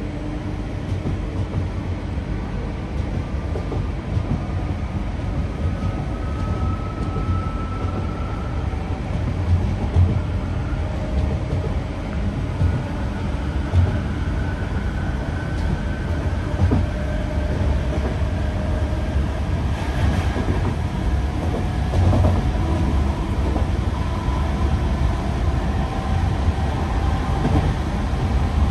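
Class 323 electric multiple unit heard from inside the passenger saloon while running: a steady rumble of wheels on rail under the whine of its thyristor traction equipment. The whine climbs slowly in pitch as the train gathers speed.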